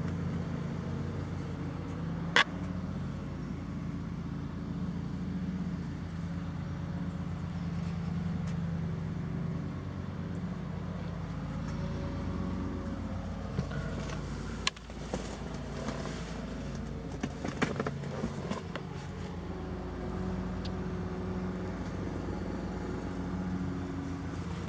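Ford LTD's engine idling steadily. A sharp click comes about two seconds in, and a few knocks and bumps come in the middle.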